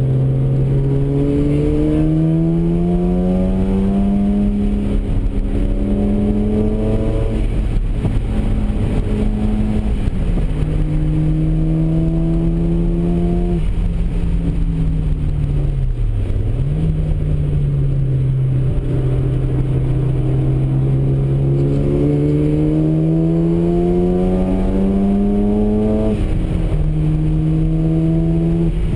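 Mazda RX-7's two-rotor rotary engine heard from inside the cabin under hard track driving: its note climbs with the revs and drops back at each gear change, sags with a short dip and pick-up about halfway through, then climbs again to another shift near the end, over steady road and wind noise.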